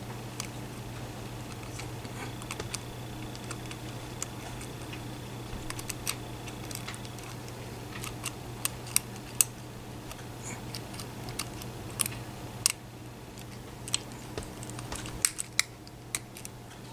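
Lock pick and tension wrench working inside a padlock's keyway: scattered small metallic clicks and ticks at an irregular pace, busier in the second half. A steady low hum runs underneath.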